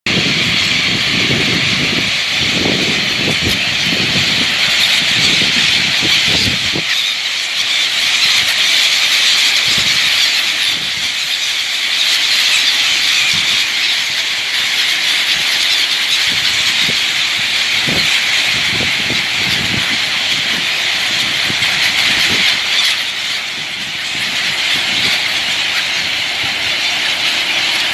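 The massed calling of a very large flock of birds, thousands together, merging into a dense, steady, high chatter. Low thumps run under it for the first seven seconds or so.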